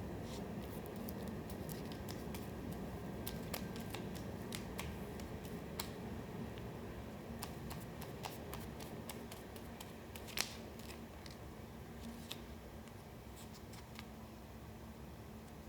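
Collage paper being handled: scattered small crisp clicks and rustles, with one sharper click about ten seconds in, over a low steady room hum.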